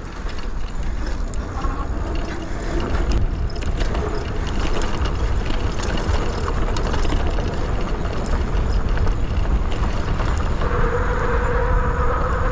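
Wind rushing over the camera microphone while a Velotric Nomad 1 fat-tire e-bike rattles and clatters down a dirt trail at speed. Near the end a steady tyre hum sets in as the fat tyres roll onto concrete.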